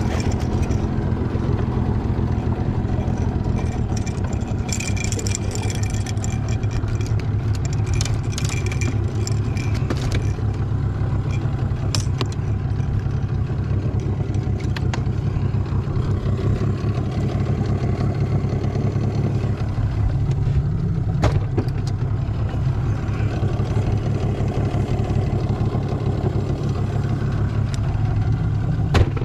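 Boat outboard motor running steadily at low trolling speed, a constant low drone. Scattered clicks and rattles come about five to ten seconds in, with a few single ticks later.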